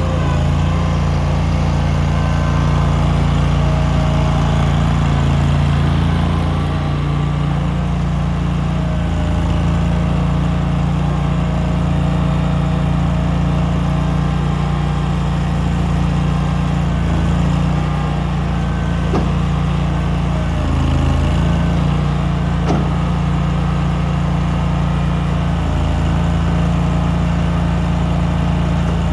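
Dig-It 198T backhoe loader's engine running steadily, with small shifts in its note now and then.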